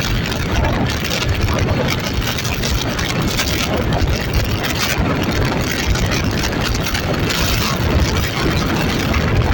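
A vehicle engine running steadily, a continuous rough rumble with no breaks.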